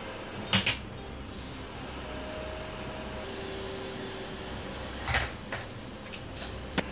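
Light scrapes and clicks of a metal spoon against a ceramic bowl and puffed rice cakes as peanut butter is scooped and spread: one short scrape about half a second in, then a cluster of scrapes and a sharp click near the end. A steady low room hum runs underneath.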